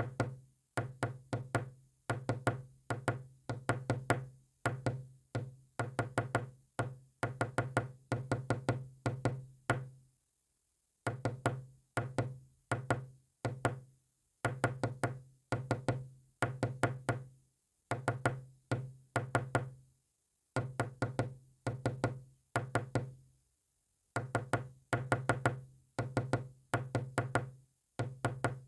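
Morse code sent as sharp, ringing knocks. The strokes come in quick clusters of several knocks, with short pauses between the groups.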